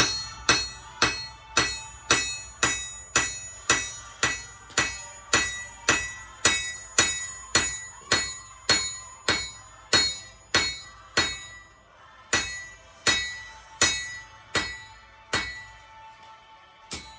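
Hand hammer striking hot rebar steel on an anvil, about two blows a second, with a bright metallic ring after each. It is forging a row of blows into a knife blade. The blows slow and space out in the last few seconds.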